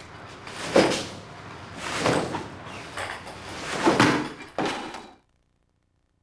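Long-handled paintbrush sweeping over a large canvas in about four loud, scraping swishes, each starting sharply. The sound stops abruptly about five seconds in.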